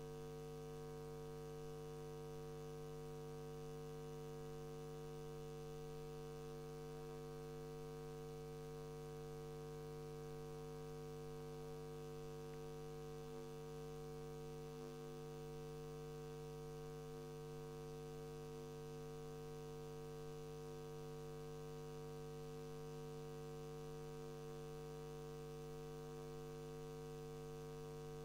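Steady electrical mains hum with a faint hiss, several fixed tones and no programme audio: dead air on the studio feed.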